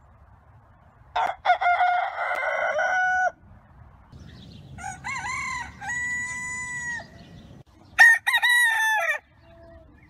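Roosters crowing: three cock-a-doodle-doos one after another, the last one shorter than the first two.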